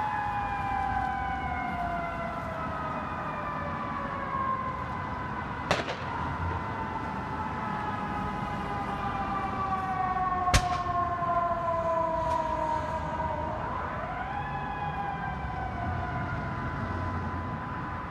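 An emergency vehicle siren winding slowly down in pitch for about fourteen seconds, then rising again and falling away, with two sharp pops along the way.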